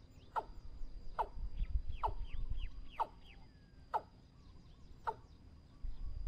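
Watercock calling: a steady series of short, deep notes, each falling in pitch, about one a second. A few faint chirps from smaller birds sound in the background.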